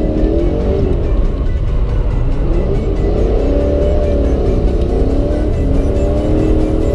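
Toyota 1UZ V8 engine of a Nissan S13 drift car, heard from inside the cabin, revving up and falling back several times as the throttle is worked through corners.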